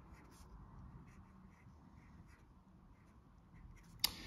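Fountain pen with a fine flex nib writing on Rhodia paper: faint, soft scratching of the nib strokes. A single sharp click about four seconds in, as the pen comes off the page.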